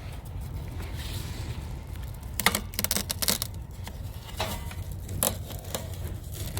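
Short clicks and rattles of small metal parts and tools being handled, in a quick cluster about halfway through and a few more later, over a steady low rumble.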